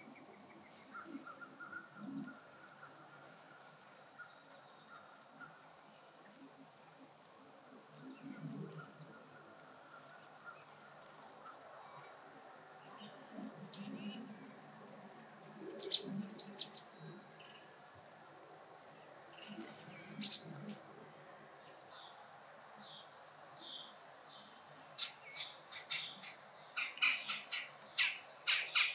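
Small birds chirping: scattered short, high chirps, coming thicker and faster near the end, with some soft low thuds.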